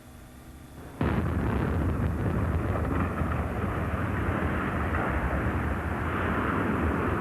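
Dynamite demolition of a power-station smokestack: a sudden blast about a second in, followed by a heavy, sustained rumble that does not die away.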